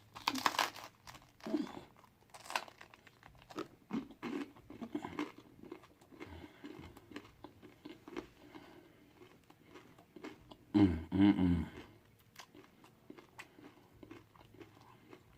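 Close-up crunching and chewing of crisp pizza crust, with irregular crackly bites throughout. A short hummed voice sound about eleven seconds in.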